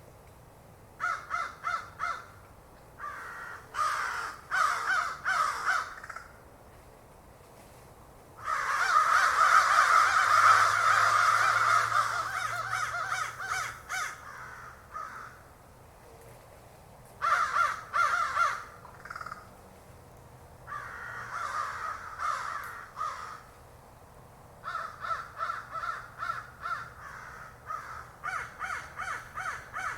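Crows cawing in bursts of quick, repeated caws with short lulls between them; in the loudest stretch, a few seconds in, many caws overlap at once.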